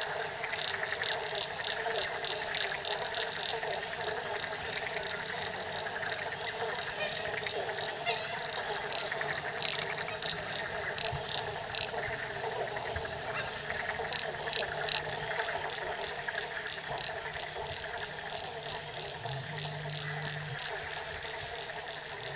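A dense chorus of frogs calling together, with a quick run of high repeated notes over the steady layered calling.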